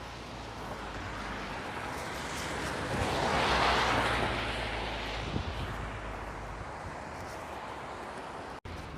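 A vehicle passing on a wet road: its tyre hiss swells to a peak about halfway through and then fades, over a steady low wind rumble on the microphone.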